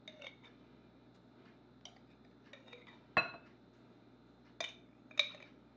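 A metal spoon clinking and scraping against a glass jar and bowl as curry paste is scooped out and knocked off. There are about six light clinks, the sharpest a little over three seconds in.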